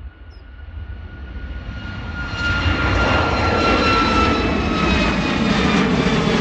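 Boeing 737 MAX's CFM LEAP-1B jet engines at takeoff thrust during the climb-out, a dense jet noise that grows louder and jumps up about two and a half seconds in as the aircraft passes closest, then holds. A high whine over it slowly falls in pitch as the jet goes by.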